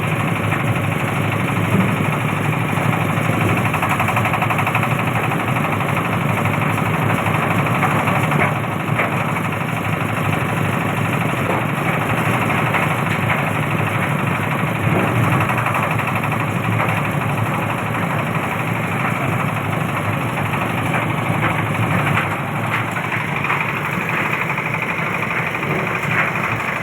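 Engine-driven oil palm fruit-stripping machine running steadily.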